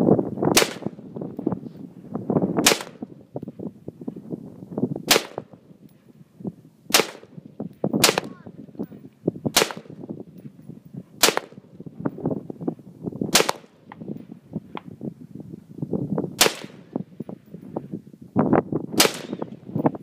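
AR-15 rifle firing ten single shots, spaced unevenly one to three seconds apart. Wind buffets the microphone between shots.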